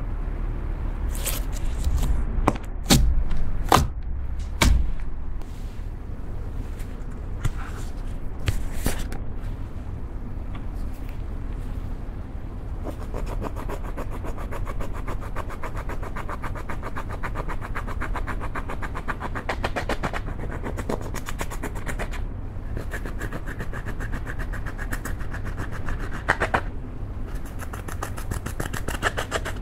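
Soft slime squeezed in the hands, with scattered sharp pops and clicks. About a third of the way in, a spatula starts scraping pressed eyeshadow out of its palette pans: a fast, continuous scratching as the powder crumbles, with a few louder scrapes.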